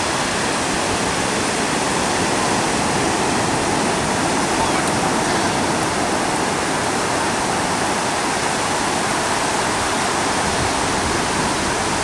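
Ocean surf breaking on the shore: a steady, even rush of water noise with no clear gaps between the waves.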